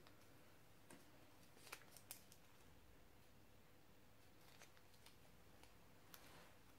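Near silence, with a few faint clicks and crinkles of folded sticky-note paper being handled and pressed together, the clearest two about two seconds in and a softer one near the end.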